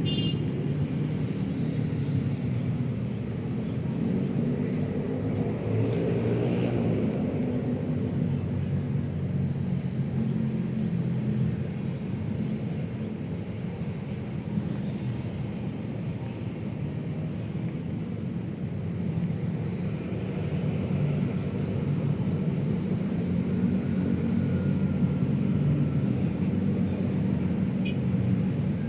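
Steady city road traffic: a continuous low rumble of passing vehicles that rises and falls gently without ever stopping.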